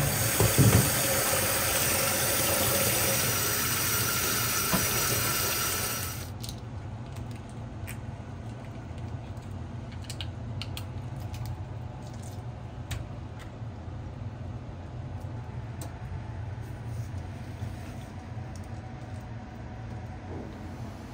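Tap water running hard into a stainless-steel sink, with a knock or two at the start, cutting off about six seconds in. After that a steady low kitchen hum remains, broken by light clicks and taps as the cooked prawns are peeled and handled on a plastic cutting board.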